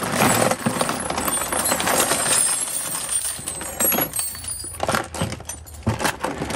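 Loose metal sockets and wrenches clattering as they are tipped and shaken out of a tool box onto a heap of tools. There is a steady spill of clinking for the first few seconds, then a few separate clinks and knocks as the last pieces drop.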